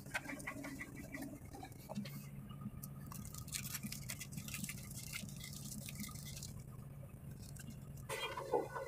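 Heavy machine engine idling, a steady low hum, with scattered faint clicks and taps over it.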